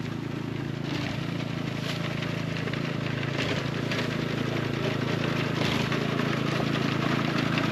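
A small engine running steadily, a constant low hum under a noisy rushing haze, typical of farm machinery working in the rice field.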